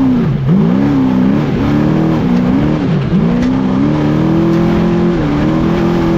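Trophy truck race engine revving up and falling back again and again as the truck is driven hard over rough desert dirt. From about three seconds in the revs climb and hold high, with a brief dip near the end. A steady rumble of road and wind noise runs underneath.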